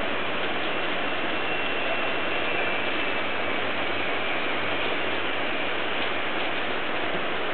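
Steady rain falling on umbrellas and a wet wooden terrace deck: a dense, even hiss of drops.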